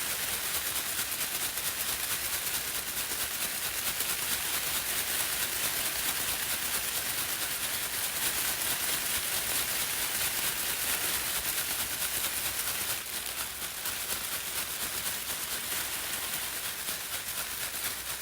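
Pom-poms shaken continuously, a dense crisp rustle of many plastic strands, a little softer for the last few seconds.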